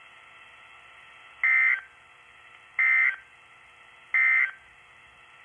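Three short bursts of EAS SAME digital data tones over NOAA Weather Radio, about a second and a half apart: the end-of-message code that closes the severe thunderstorm warning. A faint radio hiss lies between them.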